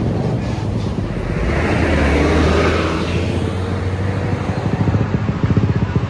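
Road traffic: a vehicle's noise swells and fades as it passes over a steady low engine hum. From about five seconds in, a nearby engine runs with a rapid low pulsing, about seven beats a second.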